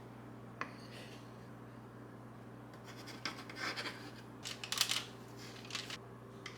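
Metal fork scraping against the inside of a bowl while coating a truffle in melted chocolate: one short tap about half a second in, then a run of short scraping strokes between about three and six seconds in.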